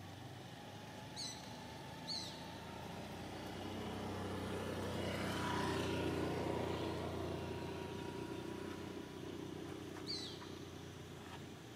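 A motor vehicle passing by out of sight: it grows louder to a peak about six seconds in and then fades, with a low engine hum and a faint whine. Three short, high, falling chirps stand out, two in the first couple of seconds and one near the end.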